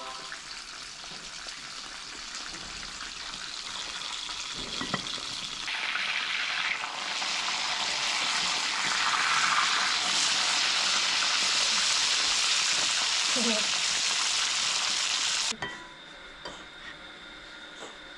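Marinated fish frying in hot oil, a steady sizzle that grows louder partway through and cuts off abruptly near the end.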